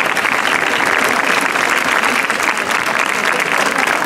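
A crowd applauding: many hands clapping together in a dense, steady patter.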